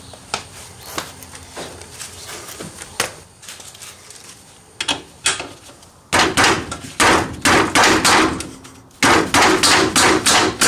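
Light scattered knocks and taps, then about six seconds in a run of loud hammer blows on metal, about two a second, with a short break near the end. The hammering is on a rusted, seized suspension fastener that has been heated to free it.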